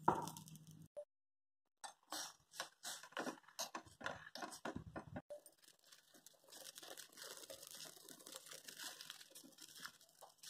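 A steel pot of water and sorghum grains heating on a gas stove toward a light boil, giving faint, irregular crackling and popping. The crackles are densest for a few seconds near the start, then settle into a softer, steady crackle.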